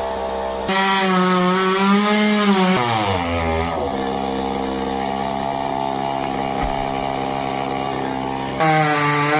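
Chainsaw running at high speed with a wavering pitch, then dropping about three seconds in to a lower, steady speed for several seconds before revving back up near the end.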